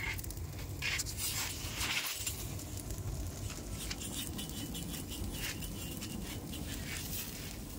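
Wood fire crackling and burning around a ram carcass, singeing its hide, with scattered sharp pops and crackles.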